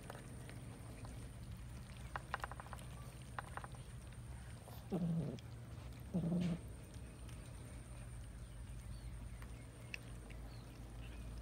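Cats eating together from a shared tray of rice and fish. There are two short runs of faint quick clicks, then two short low-pitched animal calls, each about half a second long, around five and six seconds in.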